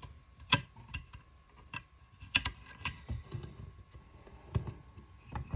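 Irregular metallic clicks and knocks from small parts of a Ruger 10/22 rifle being handled during disassembly. The sharpest clicks come about half a second and two and a half seconds in.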